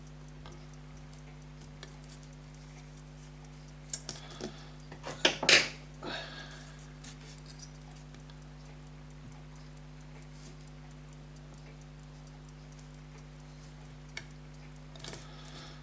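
A few light clicks and taps of small metal tools against watch parts at the workbench, bunched about four to six seconds in, the loudest about five and a half seconds in, over a steady low hum.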